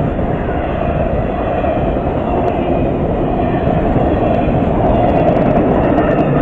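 Passenger cars of a train passing close by at speed: a steady rumble and rush of wheels on rail, growing a little louder near the end, with a few sharp clicks from the wheels in the second half.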